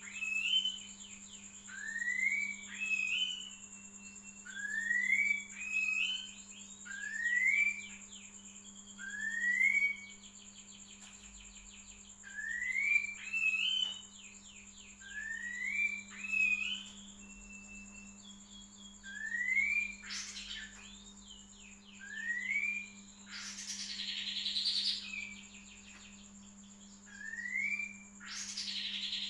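Female kapas tembak, a bulbul used as a masteran training call for magpie robins, calling over and over. Each call is a quick upward-sliding whistle, one every two to three seconds. Under it run a steady high whine and a low hum, and a few short rushing noises come near the end.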